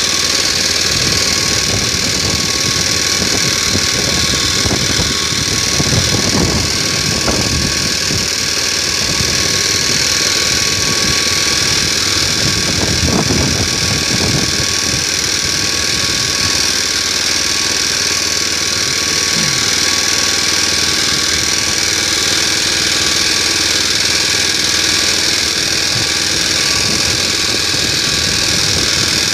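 Motor Sich walk-behind tractor engine running steadily under load while pulling a disc hiller through potato rows in second gear. Its note wavers briefly twice, about six and thirteen seconds in.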